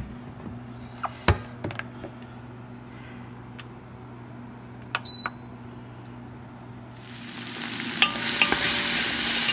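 Aroma rice cooker: its lid knocks shut about a second in, then a single short, high beep sounds from its control panel as a button is pressed, about five seconds in. From about seven seconds, sizzling builds and stays loud as sliced onions and peppers with spices fry in a pot.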